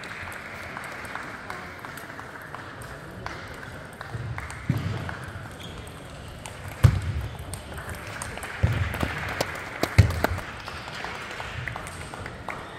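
Table tennis ball clicking sharply off paddles and the table, with a few heavier thumps in the second half, over a murmur of voices.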